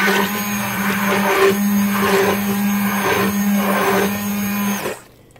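Electric stick blender running steadily in a stainless steel pot of melted soap oils and aloe vera gel, switching off about five seconds in.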